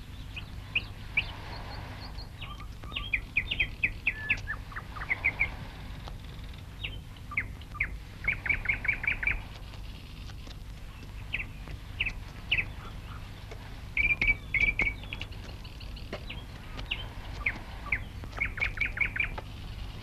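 Small songbirds chirping, in scattered bursts of short bright notes and quick trills of several evenly spaced chirps, over a low steady hum.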